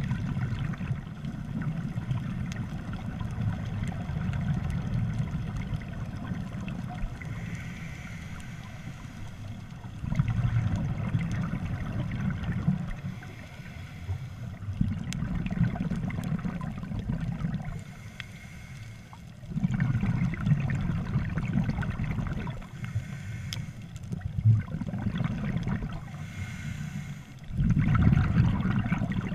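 Scuba diver breathing through a regulator underwater: low, bubbling surges of exhaled air every few seconds, with quieter stretches between breaths.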